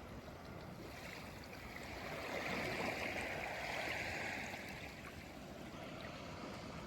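Sea waves washing onto the shore: one wave surges in about a second in and dies away by about five seconds, over a steady wash of surf.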